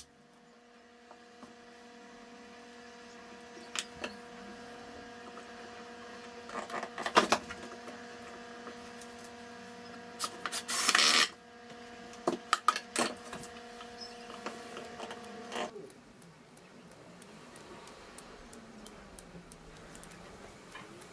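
Steady machine hum with scattered clicks and knocks of tools and wood being handled on a workshop floor, and one short loud burst of noise about eleven seconds in. The hum stops about three-quarters of the way through, leaving only faint room noise and a few light knocks.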